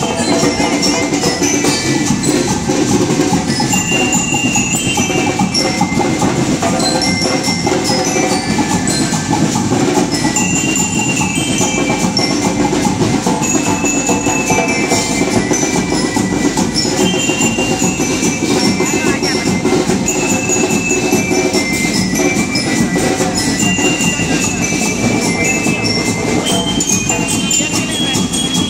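Marching band playing: bell lyres ring a quick melody of short high notes over drums and a dense lower band sound, at an even level throughout.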